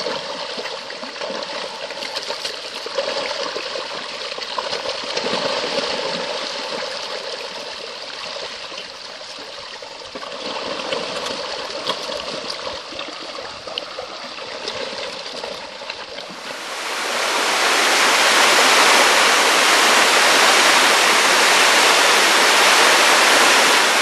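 A dense shoal of fish thrashing and splashing at the surface of shallow flowing water. About 17 seconds in, this gives way to a louder, steady rush of falling water from a waterfall.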